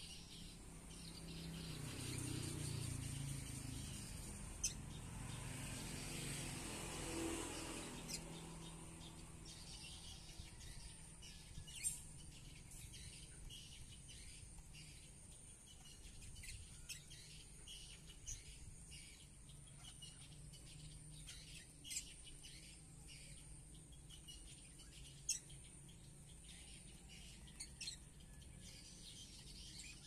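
Caged lovebirds chirping: scattered short, sharp chirps and clicks, a few standing out loudly. A low rumble swells and fades over the first several seconds.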